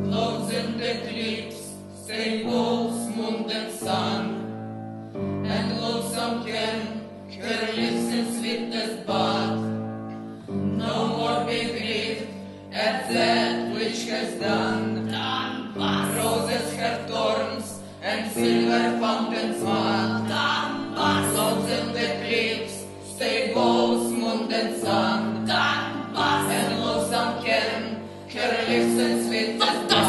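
Women's voices singing together in an ensemble, accompanied by strings including a double bass, violin and cello, with a steady rhythmic pulse.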